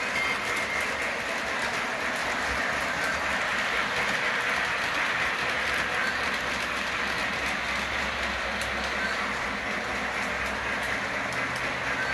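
Lionel model train running on its track: a steady rolling whir of the motor and wheels.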